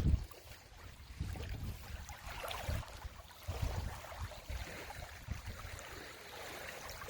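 Wind gusting against the microphone in irregular low rumbles, over a faint wash of sea water.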